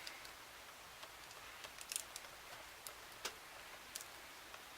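Faint, scattered small clicks and taps from a plastic label maker being handled, over a low steady hiss.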